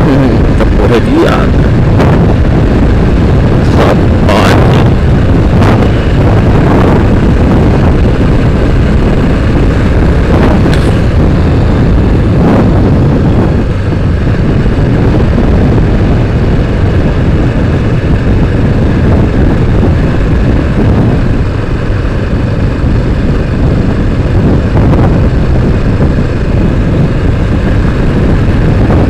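Motorcycle on the move: loud, steady wind rush on the microphone over the engine running, with a few brief stronger gusts in the first half.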